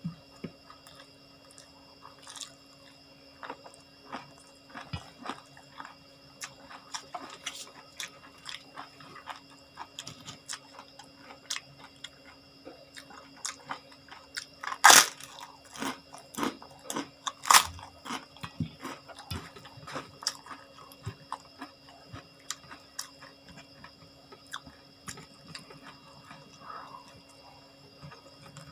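Close-up chewing and biting of crunchy food, with many small irregular crunches and two much louder crunching bites about fifteen and seventeen and a half seconds in. A faint steady hum runs underneath.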